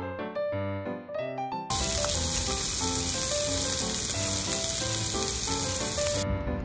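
Diced vegetables sizzling loudly in makchang (pork intestine) fat in a frying pan on a portable gas stove, starting about two seconds in and easing a little near the end. Light background music with plinking notes plays throughout.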